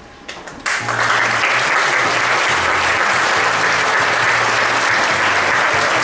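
Theatre audience applauding, breaking out suddenly less than a second in after a few scattered claps, then a steady, dense round of clapping.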